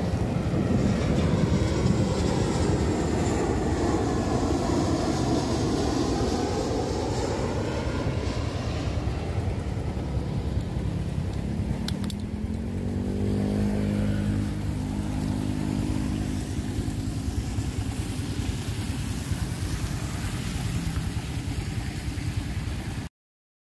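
Jet airliner climbing out after takeoff: a loud engine rumble with a slowly sweeping hiss over it, heard over rain and a running motorcycle. About twelve seconds in there is a sharp click, then a rising hum.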